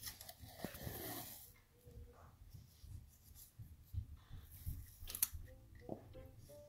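Paper and masking tape being handled: rustling and crinkling, loudest in the first second and a half, with a sharp click about five seconds in.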